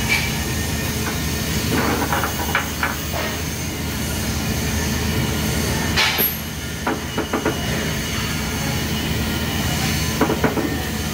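Steady workshop machinery hum with three short clusters of light clicks and knocks, about two, six and ten seconds in, from welding gear being handled before the arc is struck.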